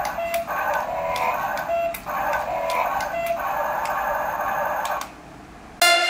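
Tinny electronic sound effects from the RC car's small built-in speaker, in short repeated phrases, breaking off about five seconds in. Electronic dance music starts just before the end.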